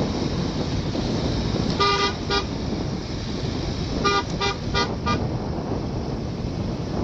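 Car horn tooting in short beeps: two quick toots about two seconds in, then four quick toots a couple of seconds later, over the steady engine and road noise of the following car.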